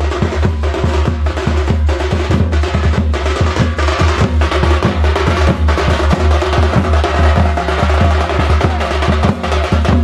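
A group of drummers beating stick-struck, metal-shelled drums in a fast, dense rhythm, several strokes a second over a continuous deep boom.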